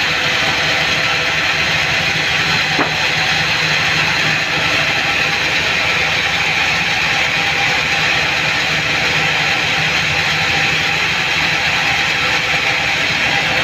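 Band sawmill running steadily with its blade cutting lengthwise through a mahogany log: an even mechanical drone with a strong high hiss and held tones.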